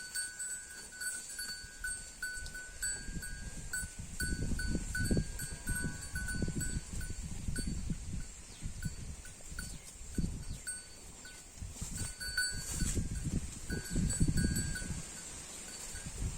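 A Holstein-Friesian cow tearing and chewing grass: an irregular run of low ripping, crunching strokes that starts about four seconds in and lets up briefly in the middle. A steady high-pitched ring, broken into short pulses, sounds behind it.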